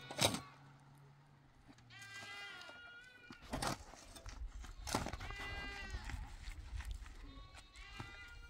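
Bleating livestock: several animals calling in three bouts of overlapping bleats, with a few sharp knocks, the loudest just after the start.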